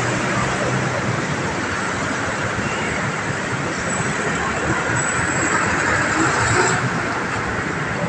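Steady traffic noise from a busy road: the engines and tyres of passing vehicles blending into one even rush.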